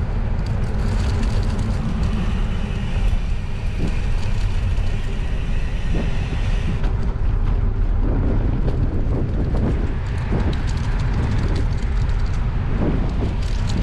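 Wind rumbling on the microphone of a moving bicycle, with tyre and road noise from riding on a paved trail. A hiss over the top eases off about halfway through.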